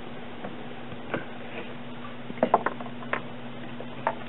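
A few scattered light clicks and knocks, several close together about halfway through, over a steady low hum.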